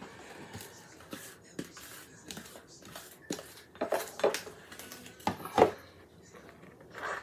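A measuring scoop scraping and knocking against a mixing bowl as thick brownie batter is scooped out and wiped off. It is a run of short scrapes and clinks, with the loudest knocks a little past the middle.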